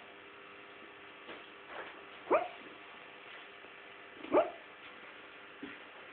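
A dog barking softly in its sleep: two short, sharp yips about two seconds apart, with a couple of fainter ones between.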